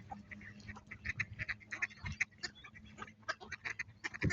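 A crowd of mallard ducks quacking in many short, overlapping calls while feeding.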